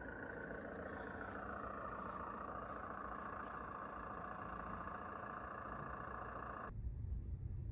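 A steady, engine-like idling sound with a faint wavering pitch, cutting off abruptly about seven seconds in and replaced by a low, dull rumble like road noise heard inside a moving car.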